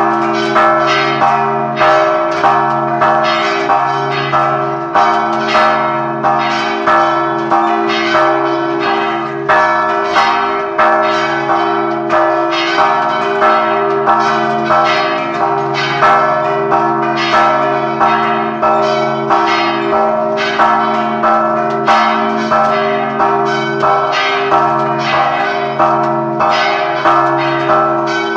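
A peal of several church bells, struck over and over in quick succession at about one and a half strokes a second, their tones ringing on and overlapping.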